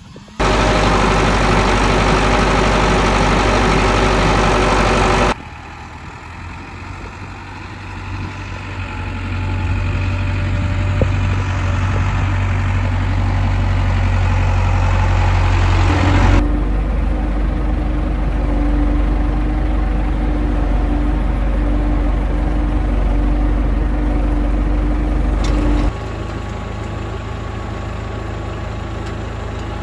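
Farm tractor engine running steadily, in several clips that cut abruptly from one to the next; the first clip is louder with a harsher, wider noise.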